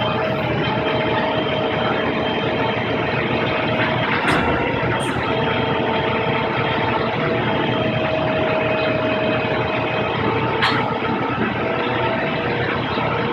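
Steady engine-like hum with several whining tones held throughout, broken by a few sharp clicks about four, five and ten and a half seconds in.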